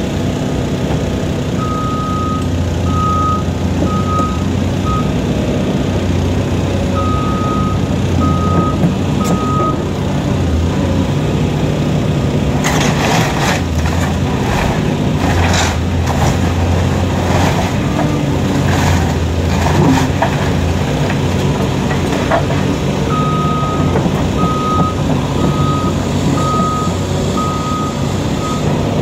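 A heavy diesel demolition machine running steadily, its reversing alarm beeping in short runs of even beeps at the start and again near the end. In the middle comes a run of cracks and crashes from the house being broken up.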